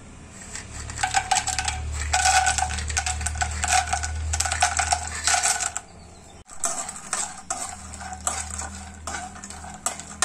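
Cashew nuts poured from a steel strainer into a nonstick kadai of melted ghee, clattering for about five seconds. After a brief break, a spatula stirs them in the ghee with scattered clicks and scraping as they begin to fry.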